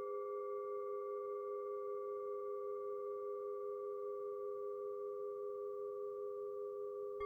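Sustained therapy tones switched on as 'frequencies': several steady pitches ringing together, like a singing bowl or tuning fork, with a slow wobble. Near the end a faint click sounds and a higher tone joins.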